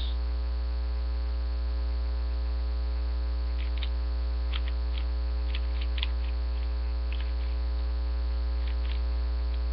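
Loud steady electrical mains hum with a buzzing stack of overtones, picked up by a webcam's microphone. A few faint light clicks come through it in the middle.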